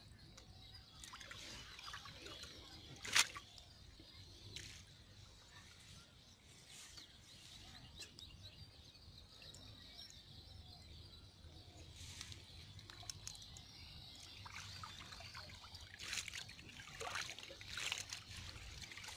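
Faint water dribbling and sloshing as hands work through a wet, weed-filled fishing net, with one sharp slap about three seconds in and a few smaller splashes near the end.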